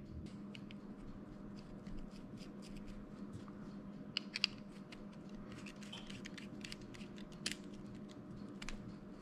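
Faint small metallic clicks and scrapes as the bale wire of a Penn spinning reel is fitted back on and a small screwdriver works at its mounting screw, with a few sharper ticks about four seconds in and again about halfway through. A low steady hum sits underneath.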